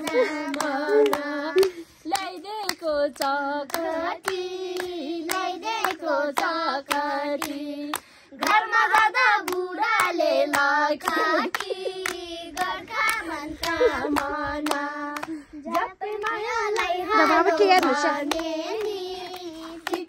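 Young girls singing a song together with a woman, clapping their hands in a steady beat.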